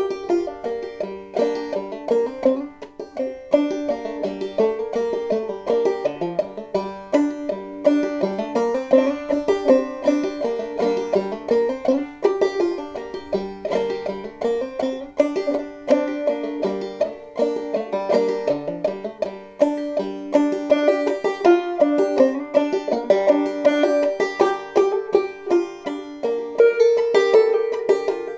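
Five-string banjo played clawhammer style in G minor tuning (gDGA#D): a steady, continuous stream of plucked notes picking out a melody.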